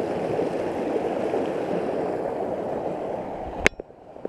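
Small mountain creek running high with runoff, rushing over logs and sticks: a steady rush of water. A little over three and a half seconds in there is a sharp click, and the water sound drops away.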